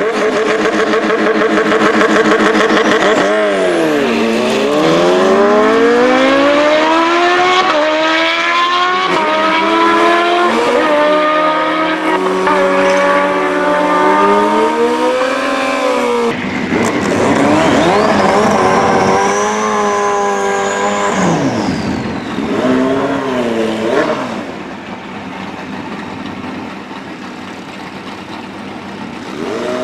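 Kawasaki Ninja H2 and turbocharged Suzuki Hayabusa sportbike engines at full throttle in a drag race, the pitch climbing through each gear and dropping at every upshift. About halfway through, a second run starts, with a high whine that rises and then falls, before the sound drops to a quieter level for the last several seconds.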